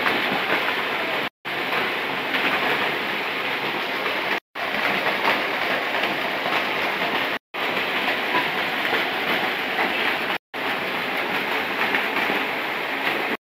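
Steady splashing rush of a small waterfall pouring into a rock pool, broken by brief dead-silent gaps about every three seconds.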